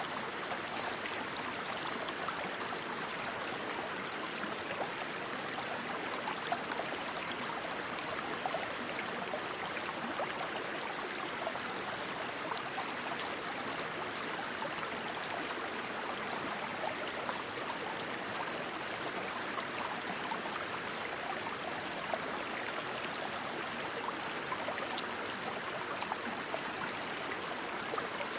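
Steady rush of flowing stream water. Over it, short high chirps come about once a second, thinning out in the second half, with two brief rapid trills about a second in and about halfway through.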